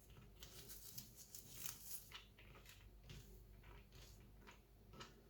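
Near silence, with faint scattered small clicks and rustles of handling in a small room.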